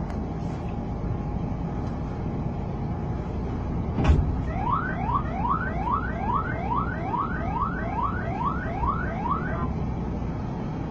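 A bus's novelty siren horn sounding a rapid run of about a dozen rising whoops, roughly two and a half a second, lasting about five seconds, over the steady rumble of road traffic. A sharp knock comes just before the whoops start.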